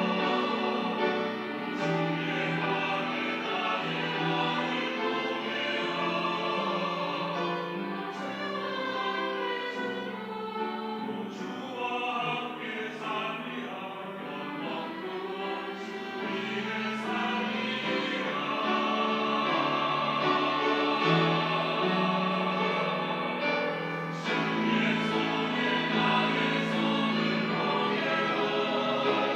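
Church choir singing an anthem in sustained chords, growing softer in the middle and swelling louder again in the second half.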